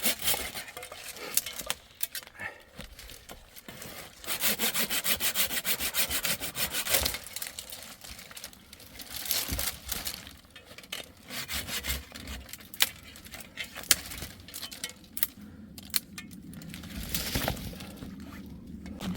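Hand saw cutting wood in several bursts of quick back-and-forth strokes, with pauses between them and a few sharp knocks.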